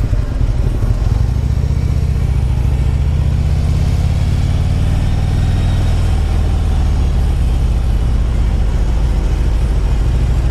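Harley-Davidson Ultra Limited touring motorcycle's V-twin engine running steadily under way.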